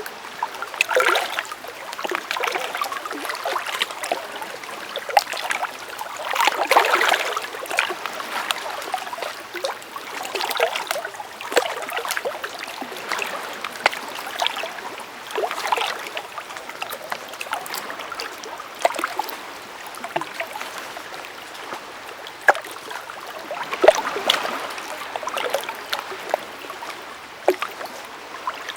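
Water of a small rocky creek running and splashing, a steady rush dotted with many small splashes and gurgles, swelling louder every few seconds.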